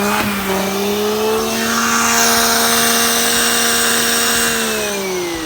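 Shark Anti Hair Wrap upright vacuum cleaner's motor running with a steady whine and rush of suction, then winding down in pitch near the end as it spins down.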